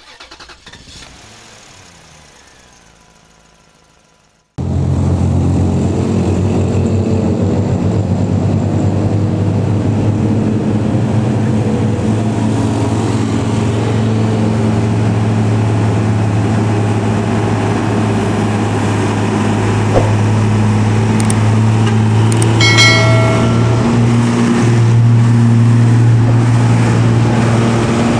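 Diesel engine of a loaded cargo truck running under load as it climbs a steep grade, a steady low drone that starts abruptly about four and a half seconds in after a faint fading sound. A brief horn tone sounds about 23 seconds in, and the engine note rises slightly near the end.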